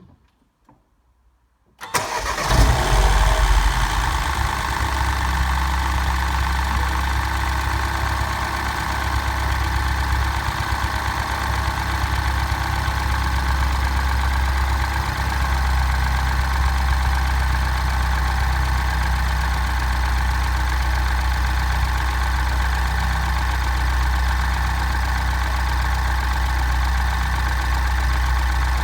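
A few faint clicks, then about two seconds in the Mini John Cooper Works R56's turbocharged 1.6-litre four-cylinder starts, runs louder for a second or two, and settles into a steady idle.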